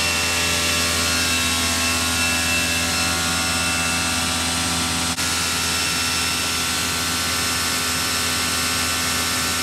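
Bosch AQT 35-12 electric pressure washer running steadily on its high-pressure jet nozzle: a constant motor and pump hum and whine under the hiss of the water jet, with one brief dip about halfway through.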